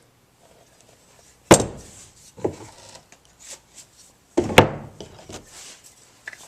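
Two sharp wooden knocks about three seconds apart, with lighter knocks and rubbing between, as a corner chisel and other woodworking hand tools are handled.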